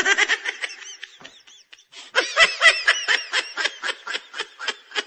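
A laughter sound effect: rapid, repeated snickering giggles in two bouts. The first fades out about a second and a half in, and the second starts about two seconds in.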